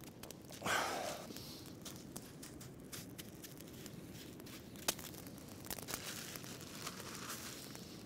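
Coarse rock salt crunching as it is poured from a crinkling plastic bag and pressed down by hand onto a heated flat stone, with scattered sharp crackles throughout. A brief louder rustle comes just under a second in, and one sharper click about five seconds in.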